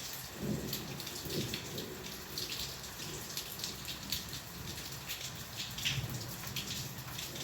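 Steady rain, with many separate drops pattering close by over the even hiss of the downpour.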